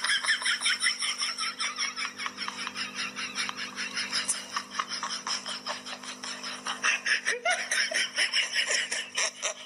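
Rapid, high-pitched laughter going on without a break, a quick ha-ha-ha pulsing several times a second, over a steady low hum.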